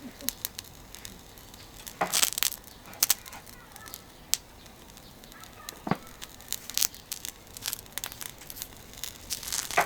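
Irregular crackling and popping from a charcoal grill heating an oiled thick iron griddle plate for seasoning, with a few sharper pops about two, three, six and nine and a half seconds in.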